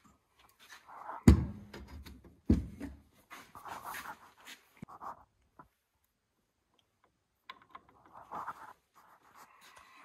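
Metal engine parts being handled during a teardown: two loud knocks about a second apart, then intermittent scraping and rubbing of metal on metal.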